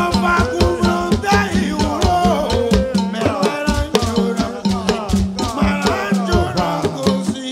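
Gospel music with a fast percussion beat, a steady bass line and singing.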